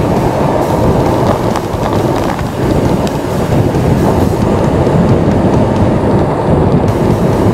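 Wind buffeting the microphone of a camera riding on a moving road bike: a loud, steady rumble.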